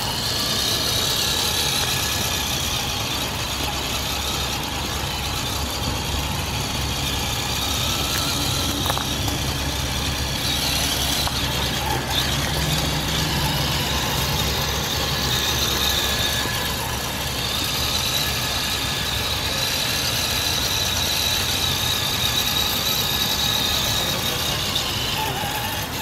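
Traxxas TRX-4 Sport RC crawler driving through long grass: a steady whine from the electric motor and geartrain over the rustle of its tyres in the grass.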